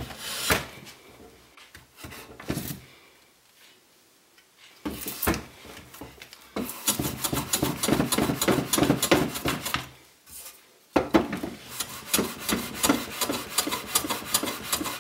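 Metal hand plane cutting shavings from the edge of a wooden frame piece in quick repeated strokes, in two spells with a short pause between them. A couple of knocks come in the first few seconds.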